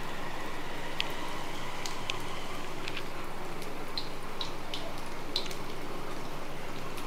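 Marinated chicken pieces deep-frying in hot oil in a cast-iron kadai: a steady sizzle with small pops and crackles scattered through it.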